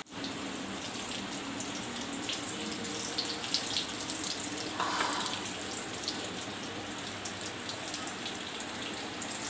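Sabudana and potato cutlets shallow-frying in oil in a pan on a very low flame: a steady sizzle with small crackles and pops.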